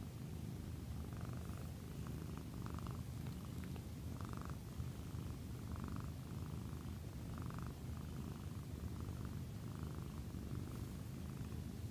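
Domestic cat purring steadily close up: a continuous low rumble that swells in a regular rhythm about every second and a half.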